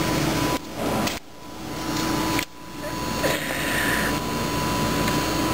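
Milwaukee M12 2457-21 cordless 3/8" ratchet's motor running in stretches under the trigger. It cuts out briefly about half a second in, again just after a second and again about two and a half seconds in, then keeps running.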